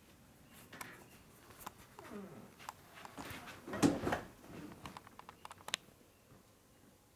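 Cat meowing: a short call about two seconds in and a louder one just before four seconds, followed by a few light clicks.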